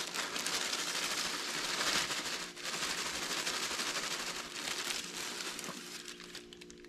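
Paper towels and wood-shaving bedding being crumpled and rustled by hand: a dense, continuous crinkling crackle that fades away near the end.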